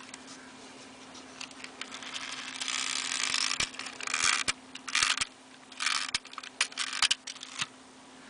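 Handling of a vintage Schuco wind-up tin toy race car: scattered sharp clicks and knocks with short raspy whirring and scraping bursts from its metal body and wheels.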